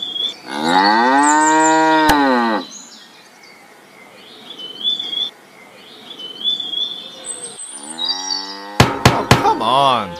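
A cow mooing: one long moo about half a second in, its pitch rising and then falling, with small birds chirping faintly in the background. Near the end comes a second rising call and a quick run of sharp clicks.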